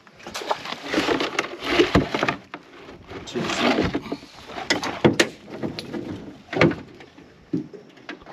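Irregular knocks, clunks and scrapes as crabs and the crab pot are handled and sorted in a small boat, with a few sharper knocks near the middle and about two thirds of the way in.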